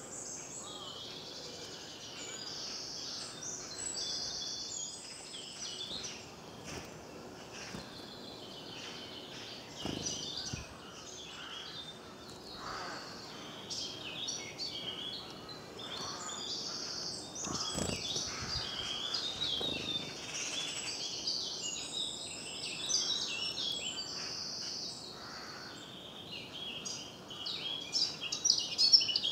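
Several wild songbirds singing at once, a dense spring chorus of chirps and trills, with a few soft low thumps around ten and eighteen seconds in and a louder flurry of sharp calls near the end.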